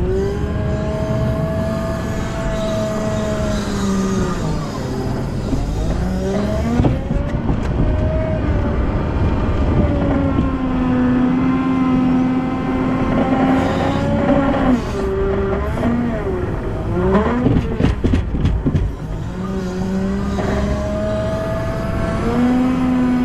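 Volvo L90F wheel loader's diesel engine running under work, its revs rising and falling over a few seconds at a time. A short clatter of knocks comes about three quarters of the way through.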